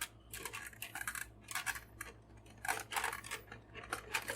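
Irregular small clicks and rustles of plastic packaging being handled as a tie binding a boxed toy figure's neck is removed.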